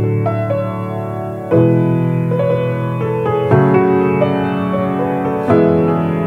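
Ritmüller Conservatory grand piano playing a slow chord progression, a new chord struck about every two seconds and left ringing, with lighter melody notes between the chords.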